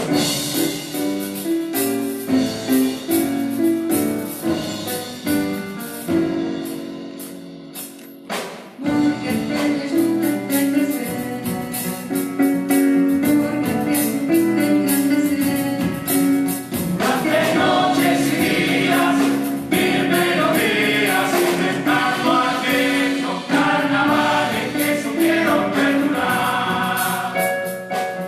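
Murga chorus singing a farewell song (despedida) together. About nine seconds in, the sound grows louder and fuller, with percussion strokes coming in under the voices.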